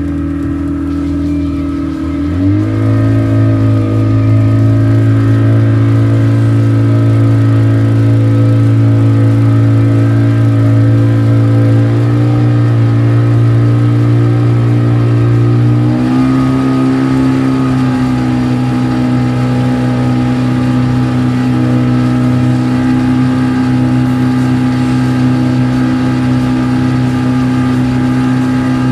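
40-horsepower outboard motor running with the boat under way, a loud steady engine tone. Its speed picks up about two seconds in with a rising pitch, steps up again a little past halfway, and rises slightly once more near the end.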